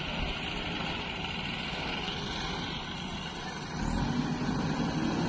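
JCB 3DX backhoe loader's diesel engine running as the backhoe digs, getting clearly louder and more labouring about four seconds in as the arm works the bucket through the soil.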